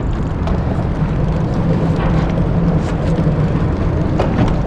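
Boat motor running with a steady low drone.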